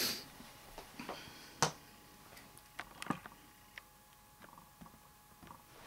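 A few faint, scattered clicks and taps of cardboard game pieces being set down on a board-game board. The sharpest is about a second and a half in.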